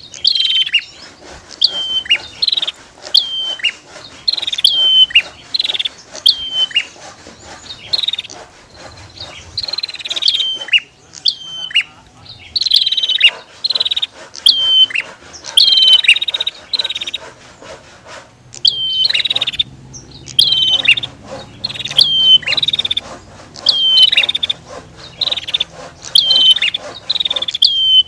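Prinias (prenjak) calling: a loud, high call repeated about once a second, each call dropping in pitch at its end, with fast ticking clicks between the calls.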